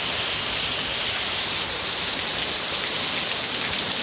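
Heavy downpour of rain falling hard and steadily, a dense even hiss of rain on surfaces that turns slightly higher-pitched about two seconds in.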